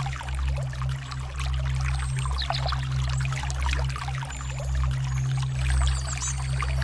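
Stream water trickling and splashing over a steady low hum, with a few brief high bird chirps in the second half.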